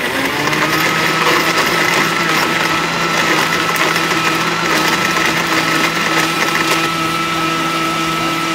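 Commercial countertop blender running, blending fruit into fresh juice. Its motor settles into a steady, high hum about half a second in.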